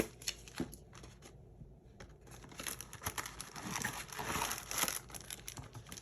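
Packaging crinkling and rustling as a small mail package is opened by hand. A few sharp crackles come first, then a short lull, then a longer run of crinkling from about halfway in.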